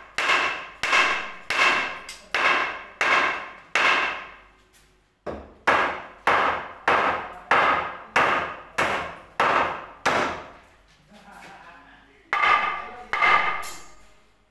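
Repeated hammer blows, roughly one to two a second, each with a short ringing tail. There is a brief pause about five seconds in, a quieter patch around eleven seconds, and then a final pair of strong blows.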